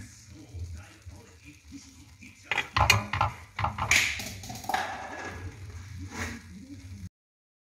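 Kitchen clatter of a metal saucepan on the stove: a cluster of sharp clinks and knocks, another about a second later and one more near the end, over a low hum, cutting off abruptly.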